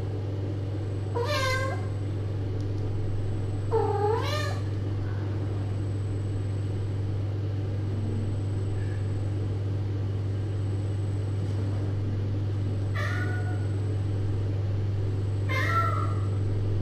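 A cat meowing: four separate meows, one about a second in, one near four seconds, and two close together near the end, over a steady low hum.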